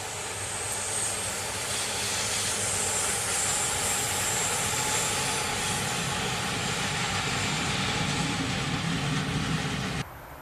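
Electric locomotive and a many-axled heavy-load wagon passing close by: a steady rush of wheels on rails with a high hiss, the deeper rumble of the wagon's wheels building near the end. The sound drops off abruptly about ten seconds in.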